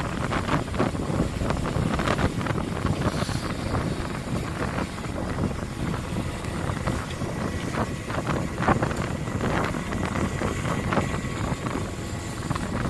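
Steady rumble of a fishing boat at sea, with wind buffeting the microphone and irregular knocks and clatter on deck.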